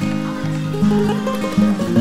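Instrumental background music, a melody of held notes changing every half second or so.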